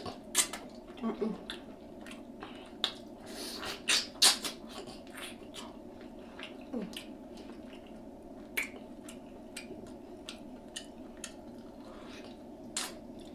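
Close-miked mouth sounds of a person eating oxtails: irregular wet clicks, lip smacks and chewing, loudest in the first few seconds, over a steady low background hum.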